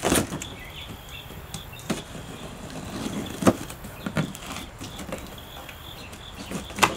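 Pocket knife cutting the packing tape on a cardboard box: scratchy cutting and a few separate short, sharp taps and rustles of the cardboard.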